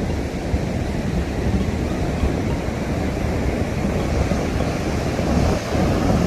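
Wind buffeting the microphone, with the steady wash of sea surf.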